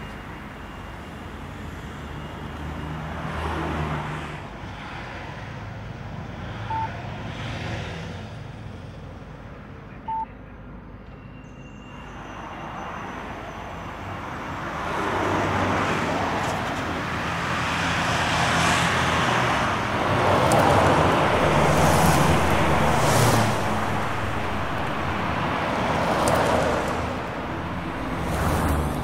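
Street traffic noise: cars going by, swelling louder in the second half and easing again near the end, with two short beeps about 7 and 10 seconds in.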